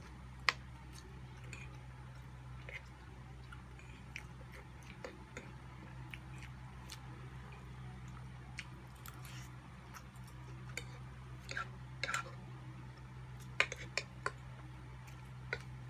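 Chewing and eating sounds: mouth noises and scattered light clicks of forks against plates, over a steady low hum.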